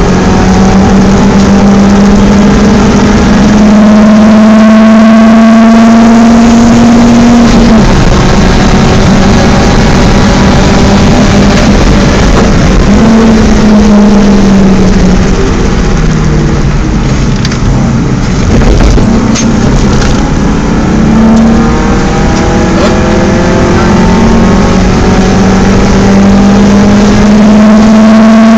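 BMW 318is four-cylinder engine driven hard on a race track. The engine note climbs steadily through the revs, drops sharply about eight seconds in, then rises and falls several more times as the driver shifts gears and lifts off.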